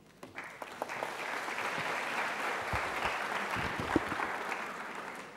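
Audience applauding in a large hall, building up shortly after the start and fading toward the end.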